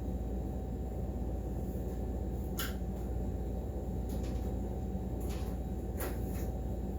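Five light clicks and taps from small objects being handled, spread over the last two-thirds, over a steady low hum of room noise.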